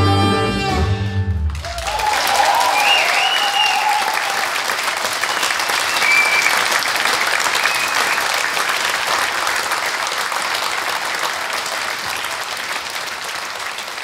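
A live rock-jazz band (saxophone, electric guitars, bass, drums) holds a final chord that cuts off about a second and a half in. An audience then applauds, with a few whoops of cheering early on, and the applause slowly dies down.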